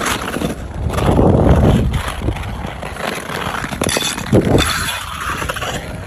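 Figure skate blades on natural outdoor ice: edges scraping and carving, with crunchy, gritty pushes that swell and fade a few times.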